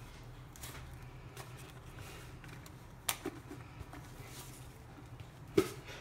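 Quiet kitchen room tone: a low steady hum with a few short faint clicks and knocks, the loudest near the end.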